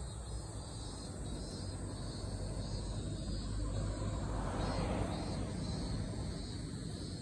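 Insects chirring steadily in a high band over a low, steady rumble, with a brief swell of noise about two-thirds of the way through.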